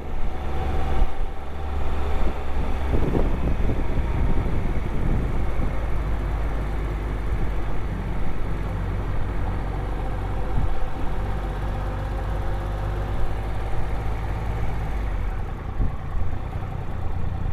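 Triumph Trophy motorcycle engine running steadily under way.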